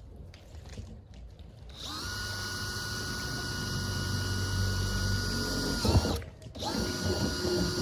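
Power drill boring drainage holes in the bottom of a planter pot. The motor spins up about two seconds in and runs steadily for about four seconds. It stops with a sharp click, then starts up again near the end.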